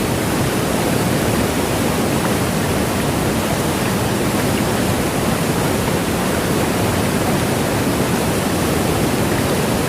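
Steady, loud rush of water in a cloudburst downpour, even throughout with no breaks.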